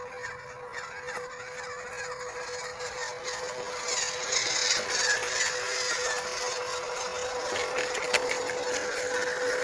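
Small electric motors and gears of 1/12-scale RC off-road cars whirring as they crawl through the undergrowth, louder from about four seconds in as one comes near; a sharp click near the end.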